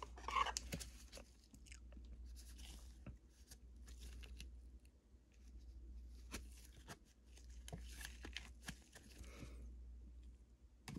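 Faint handling of a trading card in plastic: a sleeved card slid into a rigid plastic top loader by gloved hands, with soft rustles and a few sharp plastic clicks.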